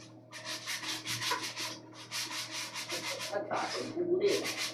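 Rapid back-and-forth scraping strokes, coming in several short bursts of about half a second to a second with brief pauses between them.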